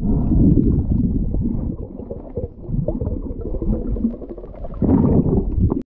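Water sloshing and bubbling around a swimmer, heard underwater: a dull, muffled rush with irregular surges.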